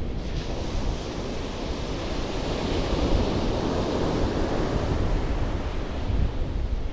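Sea waves breaking and washing up the beach, with wind rumbling on the microphone. The surf swells to its loudest about halfway through, then eases off.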